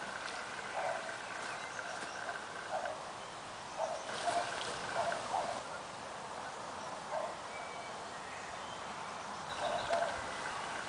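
Short animal calls, one after another in small clusters, over a faint high steady tone that starts and stops.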